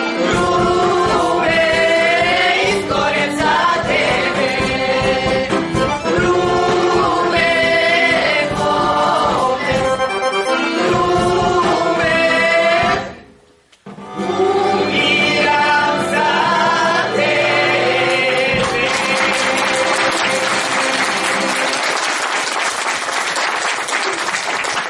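Mixed men's and women's choir singing a traditional Macedonian folk song, with steady held low notes under the melody. It breaks off for about a second halfway through, then resumes, and in the last few seconds the song ends and the audience applauds.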